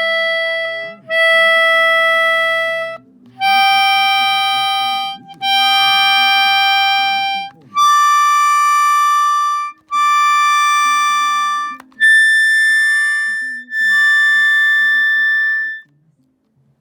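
English concertina sounding a slow series of held notes and chords, about eight in a row, each held for a second or two with short breaks between. The last one stops about a second before the end.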